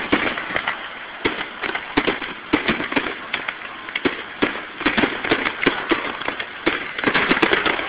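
Aerial fireworks shells bursting in quick, irregular succession, with many sharp bangs and crackling that grows denser near the end.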